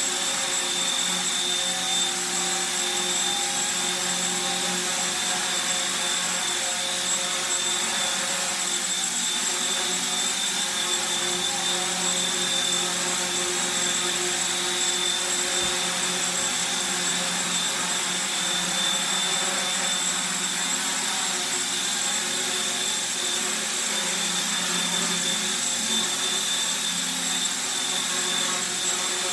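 Small radio-controlled model helicopter, a 1/35 plastic Black Hawk kit built on XK K110 flight parts, hovering: a steady high whine of its small electric motors with the whir of its rotor blades.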